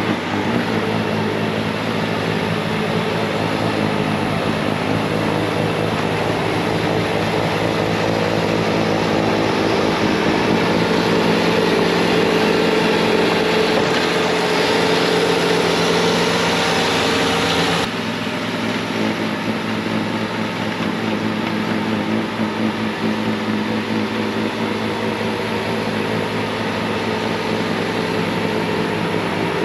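Bobcat T66 track loader's diesel engine running steadily at full throttle, with the snowblower attachment hissing as it throws wet snow. About 18 seconds in, the sound changes abruptly and the hiss drops away.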